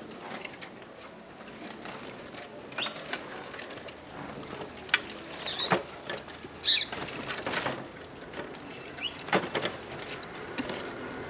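Wild birds, kept in cages, giving a few short high chirps about halfway through. Scattered clicks and knocks are heard throughout.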